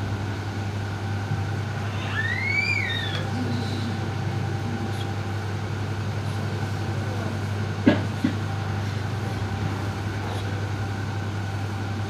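A steady low hum with faint steady tones above it. About two seconds in, a short squeal rises and then falls, and about eight seconds in come two sharp knocks close together.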